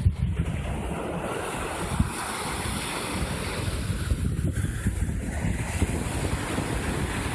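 Small sea waves breaking and washing up a sandy beach, with wind buffeting the microphone.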